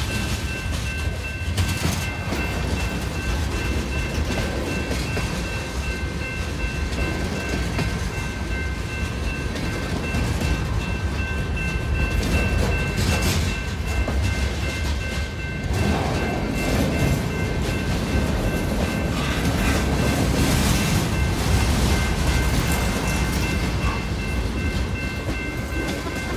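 Freight train cars rolling past at close range, with steady wheel rumble and clicking over the rails, over a level-crossing warning bell ringing steadily.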